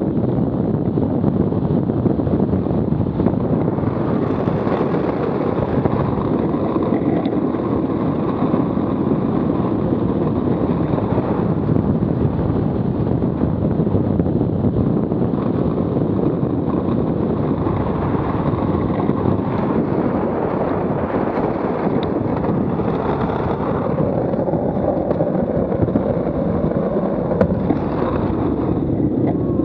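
Steady rush of wind on the microphone, together with the rumble of the wheel suit's wheels rolling on asphalt, during a fast downhill run.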